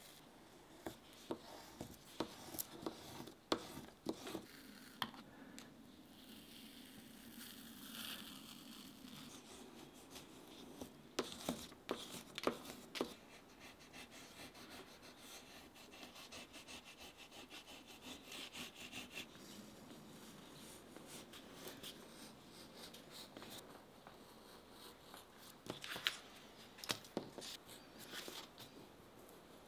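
Faint rubbing, scraping and crinkling of paper shoe-pattern pieces being handled and pressed flat on a wooden table, with scattered sharp clicks and taps. Near the end there is a cluster of clicks and scraping as a utility knife works around a pattern piece on paper.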